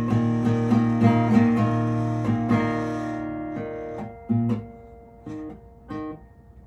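Acoustic guitar strumming chords in a quick, even rhythm. After about three and a half seconds it thins to three separate strums about a second apart, each left to ring.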